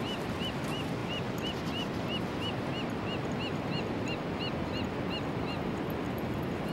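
Steady beach ambience of wind and surf, with a regular run of short, high chirps about three a second that stops about a second before the end.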